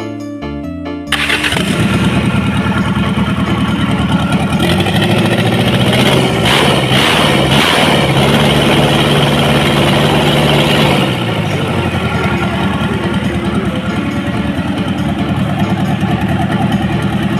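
Mitsubishi 4D32 four-cylinder diesel engine starting about a second in and then running, louder for about six seconds in the middle before settling back to a steady run.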